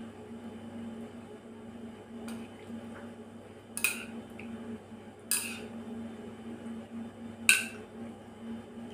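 Metal chopsticks clinking against a ceramic bowl: three sharp clinks with a short ring, about four, five and a half and seven and a half seconds in, the last the loudest, with a few fainter taps. A steady low hum runs underneath.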